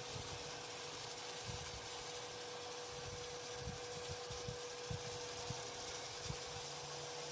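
Veniibot N1 Max robot vacuum running: a steady hum with a constant hiss, and scattered soft low knocks.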